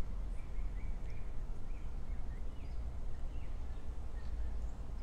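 Outdoor ambience: a steady low rumble with faint, scattered small bird chirps.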